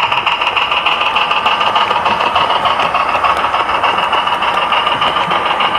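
Model train running on the layout's track: a steady whirring rattle of motor and wheels.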